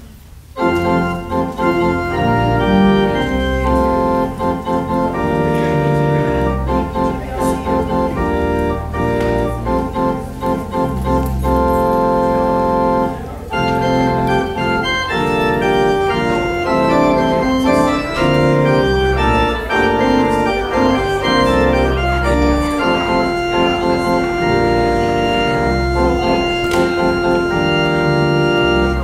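Church organ playing a postlude to close the service: full sustained chords over deep pedal notes, starting about half a second in.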